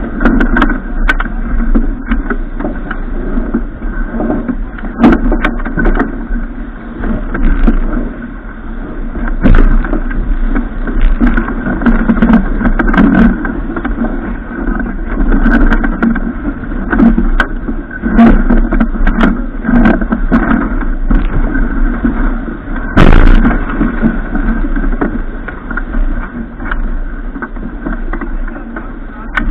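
Loud, steady rushing noise of a boat under way, with scattered clicks and knocks and one sharper knock about twenty-three seconds in.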